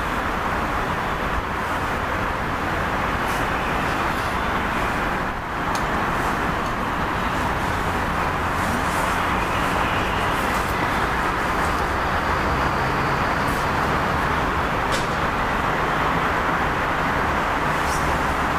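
Steady background noise of a busy mainline railway station: a constant rumble and hiss, with a few faint clicks.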